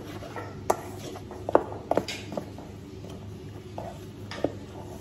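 Metal spoon stirring dry tapioca flour in a stainless steel mixing bowl, with several sharp clinks of spoon on bowl: one under a second in, two close together between one and a half and two seconds, and one near the end.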